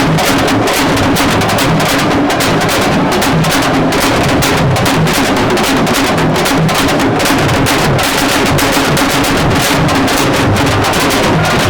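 Loud percussion-led music: fast, dense drumming with a steady, unbroken beat.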